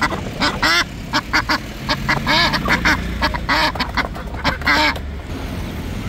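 Domestic ducks quacking, a quick run of short calls several a second, stopping about five seconds in.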